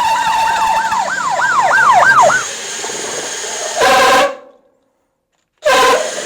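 Cordless drill running under load at low speed as the bit bores through lumber. Its motor whine wavers up and down in pitch, then steadies at a lower level about two seconds in, which fits the bit breaking through. Two short bursts of the motor follow, with silence between them.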